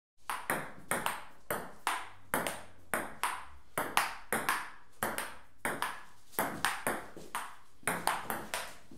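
Table tennis rally: the ball clicking back and forth off the bats and the table in a quick, even rhythm, about two to three clicks a second.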